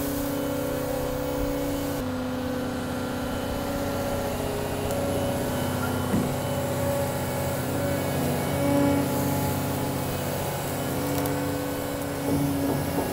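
A tracked excavator's diesel engine running steadily while its hydraulics work the bucket against a round hay bale, with small brief shifts in pitch.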